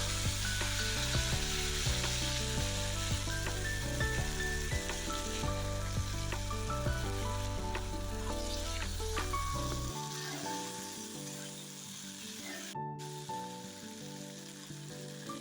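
Long beans frying in hot oil in a pan: a steady sizzle with occasional clicks of stirring, under soft background music.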